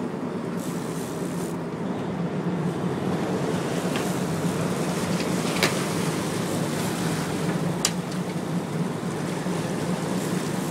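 Boat engine running with a steady low drone under the rush of churning whitewater alongside the hull, with a few sharp clicks.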